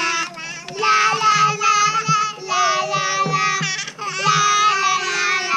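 Italian-language song used as background music: a high singing voice holding long, gliding notes.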